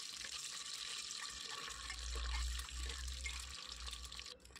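Peeled boiled eggs frying in hot mustard oil in a pressure cooker: a steady, faint sizzle with light crackling, and a low rumble in the middle.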